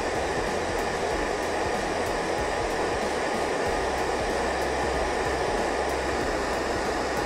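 Hair dryer running steadily, blowing air to dry Micro Sol decal-softening solution on a freshly applied decal.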